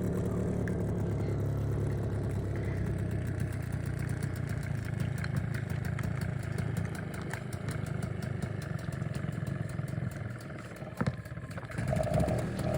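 5 hp outboard motor running steadily with a rapid, even firing beat. It drops off briefly about ten and a half seconds in, then picks up again near the end.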